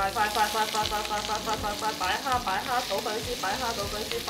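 Prawns, pork belly and aromatics sizzling in a hot frying pan. Over the sizzle runs a rapid string of high, bending pitched chirps, several a second.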